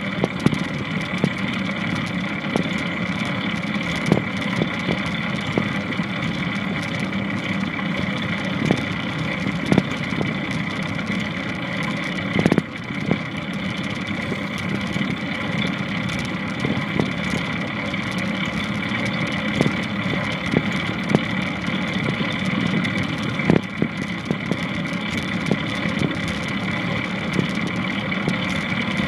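Longboard wheels rolling steadily over pavement, with scattered clicks and a couple of louder knocks, about twelve seconds apart, from the board crossing joints or the land paddle striking the ground.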